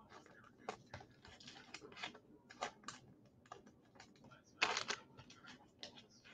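Trading cards and card packs being handled: faint, irregular light clicks and rustles as cards are flicked through and sorted, with one louder rustle lasting about half a second a little past halfway.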